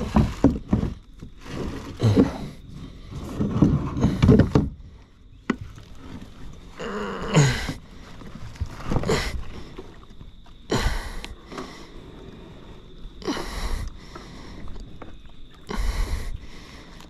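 Kayak paddle strokes splashing in the water, about one every two seconds, with the paddler's hard breathing as he labours to make way.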